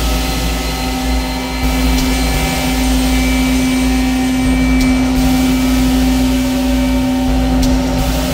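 Dark ambient synthesizer drone from iPad synth apps, drenched in reverb: a dense wash of hiss over a deep rumble, with a steady low held tone and faint thin high tones drifting in and out.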